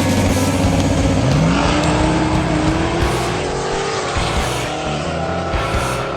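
Car engine running through a Solo Performance aftermarket exhaust, accelerating: its pitch climbs about a second in, keeps rising slowly, then levels off.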